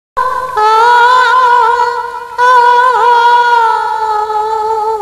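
Music: a woman's voice holding a long high note with a slight waver, breaking off briefly about two seconds in and then holding a second long note.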